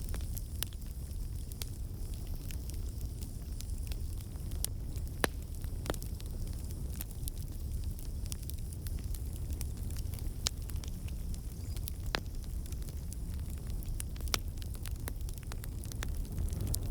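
Campfire burning: a steady low rumble of flames with irregular crackles and occasional sharper pops from the burning wood.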